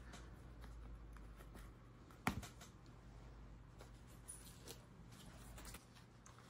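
Near silence: faint room tone with a low hum, one sharp tap a little over two seconds in and a few faint ticks, from trading cards being set down on a stack on the table.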